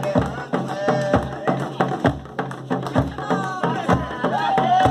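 Batuque folk music: drums beating a rhythm with voices singing over them, one long sung note held near the end.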